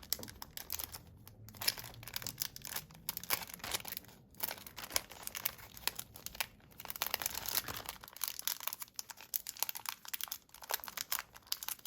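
Crinkly packaging crackling and crinkling as it is handled and pulled at by hand, a hard-to-open pack being worked open.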